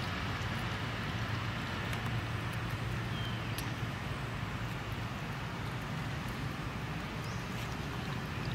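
Steady low background rumble, with a few faint clicks and a short faint high chirp about three seconds in.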